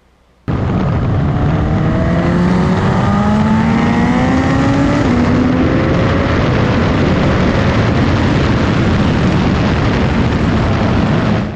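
Heavy wind noise battering a GoPro Hero 6's internal mic mounted on a Suzuki GSX-S1000 at racetrack speed, 'really bad'. It almost buries the bike's inline-four engine, heard faintly rising in pitch under acceleration, with a gear change about five seconds in.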